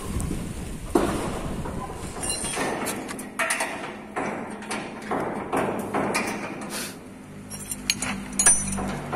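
Steel folding shop door clattering and clanking as its panels are slid along, then a series of metal knocks and scrapes from a steel bar worked against the door's bottom bracket, some with a short high metallic ring.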